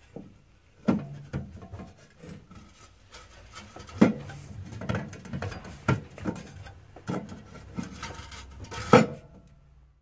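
Metal boiler flue pipe clanking and rattling as it is pushed and wiggled by hand at its joint: irregular knocks about a second apart, loudest about four seconds in and near the end. The flue is not the correct one for this Baxi combi boiler.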